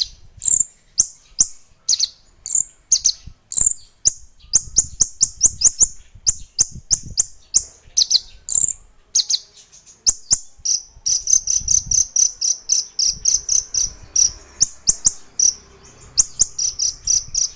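A small caged songbird chirping over and over: short, sharp, high-pitched chirps, many dropping in pitch, breaking now and then into quick runs of several chirps a second.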